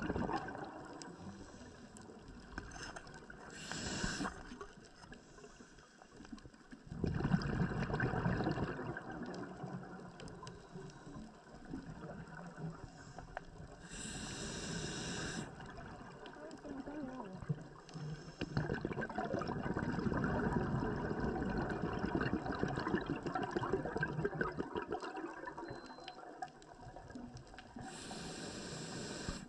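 Underwater sound picked up by a diving camera: a steady wash of water noise with crackling, swelling louder in stretches, and three short bursts of hiss.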